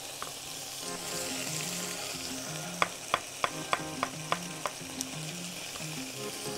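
Chicken strips, shallot and mushrooms sizzling as they fry in a wok, with a chef's knife slicing mushrooms on a wooden chopping board: one cut just after the start, then a run of about seven quick cuts, about three a second, a few seconds in.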